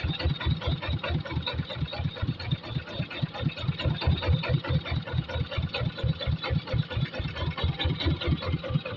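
Single-cylinder diesel engine of an e-taen farm vehicle idling with a steady, even chug of about five to six beats a second.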